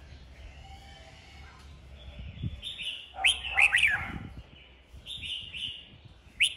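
Caged red-whiskered bulbul singing short, loud phrases of rising and falling whistled notes, the loudest burst about three seconds in, more phrases a couple of seconds later and a sharp rising note near the end.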